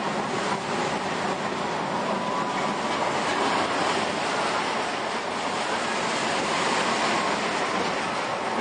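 Vekoma Boomerang shuttle roller coaster train running along its steel track through the inversions overhead: a steady rush of wheels on rails, with a faint thin whine at times.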